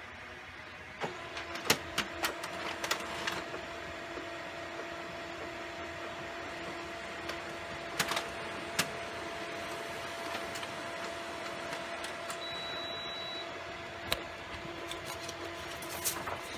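Canon ImageClass MF634CDW colour laser printer printing a page: a cluster of clicks as it starts up about a second in, then a steady whir of the mechanism with occasional clicks and clacks, and more clicks near the end as the page comes out.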